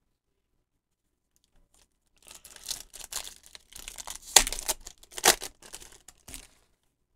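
Pokémon booster pack's foil wrapper being torn open: crinkling and ripping that starts about two seconds in, with the two sharpest rips around the middle, and stops shortly before the end.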